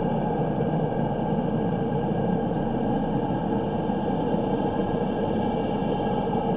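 Steady rumble of road traffic, even throughout with no single vehicle standing out, and a few faint steady high tones running through it.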